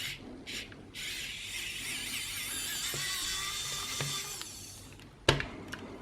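Small electric screwdriver whining as it backs a screw out of the controller's plastic casing, its pitch wavering for a few seconds and then fading, followed by a sharp click near the end.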